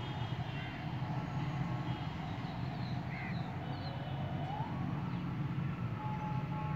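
Steady low hum of distant traffic, with a siren-like tone rising in pitch about four and a half seconds in and a few short chirps.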